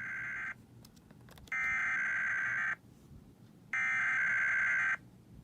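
Emergency Alert System SAME header: the harsh digital warble of frequency-shift-keyed data encoding a Required Weekly Test. The tail of one burst ends at the start, then two more bursts of about a second each follow, a second apart.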